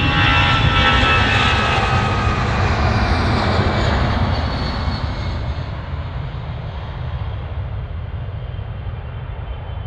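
Boeing 777-300ER's GE90-115B jet engines on the landing roll on a wet runway: a loud rushing noise with high whining fan tones over a steady low rumble, easing off and growing duller from about halfway through.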